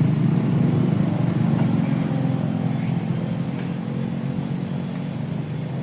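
Small engine running steadily, with a low hum that slowly fades as it goes.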